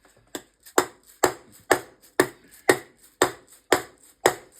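Two-stroke dirtbike crankcase halves being knocked apart with a hammer: a steady run of sharp taps, about two a second, each with a short ring.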